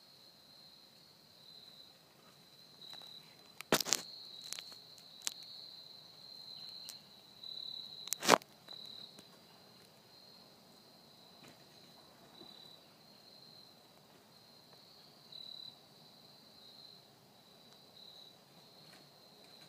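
Steady, high-pitched chorus of insects with a gentle pulse. A handful of sharp clicks fall between about four and eight seconds in, and the last of them is the loudest.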